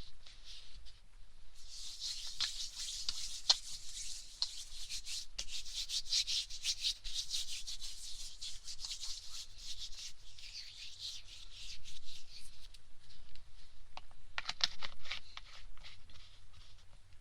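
Hands rubbing together with hand wash, in a long bout of brisk rubbing strokes, then a pause and a shorter bout with sharp crackles.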